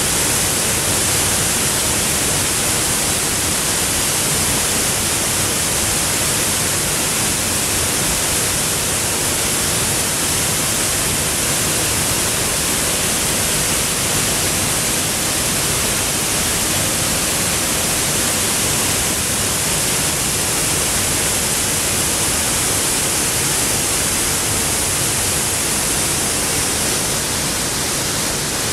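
Waterfall heard close up: Cedar Cliff Falls rushing in a steady, unbroken hiss of falling water, strongest in the upper range.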